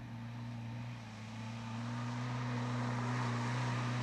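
A 4x4's engine running steadily under load, growing louder as it drives through a flooded muddy track. Water splashes up around the wheels in the second half.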